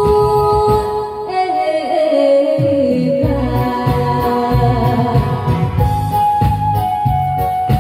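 A woman singing live through a PA over a loud electronic backing track. About a second in, a long held note slides downward while the bass and drums drop out, then the full backing comes back in.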